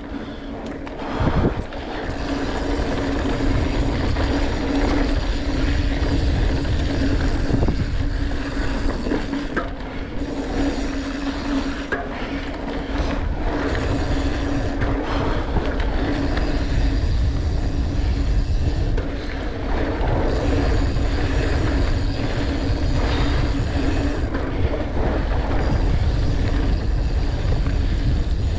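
Norco Torrent Steel mountain bike riding down a dirt trail: tyres rolling over dirt, with a steady low hum and heavy wind rush on the microphone. A hard knock about a second in.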